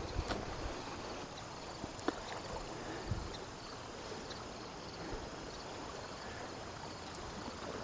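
Steady rushing of a flooded creek running over its banks, with a few faint ticks scattered through it.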